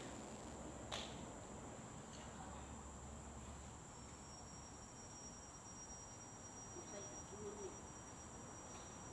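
Faint, steady high-pitched chirring of insects such as crickets. A second, thinner high tone joins about four seconds in, and there is a single click about a second in.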